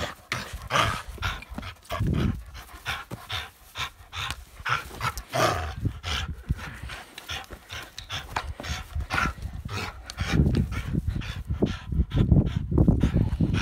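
A dog panting hard in quick, irregular breaths while tugging on a plastic ring toy, with low rumbling noise in the last few seconds.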